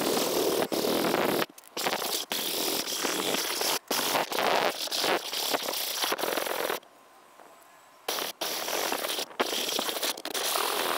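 Hand sanding with coarse sandpaper wrapped on a wooden block, continuous rasping strokes that pause briefly a few times, with a longer pause about two-thirds of the way through.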